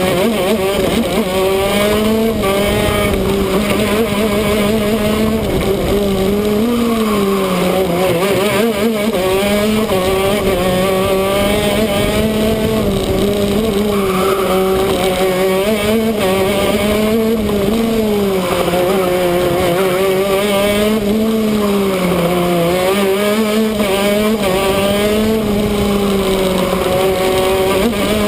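125cc two-stroke shifter kart engine running flat out through a lap, its pitch climbing and then dropping sharply again and again as it accelerates, shifts and brakes for corners. Wind rushes over the front-mounted microphone.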